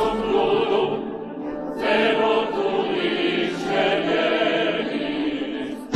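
Music with operatic, choir-like singing: sustained, wavering voices, briefly thinning about a second and a half in.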